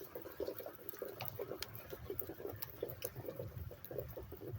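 Rainwater dripping and plopping irregularly, several drops a second, just after heavy rain has let up.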